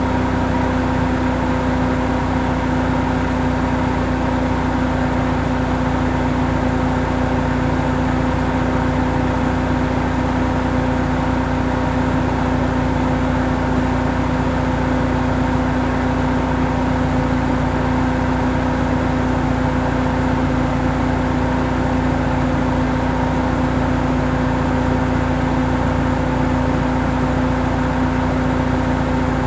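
Car engine idling at a steady speed: a constant hum with no change in pitch or loudness.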